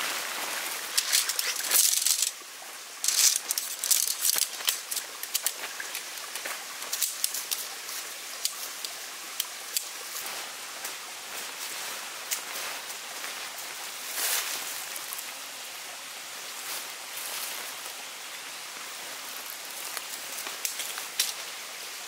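Nylon tent fabric rustling and crinkling as it is unfolded and spread out by hand. It comes in louder bursts over the first five seconds, with a short lull about two seconds in, and settles into softer rustling after that.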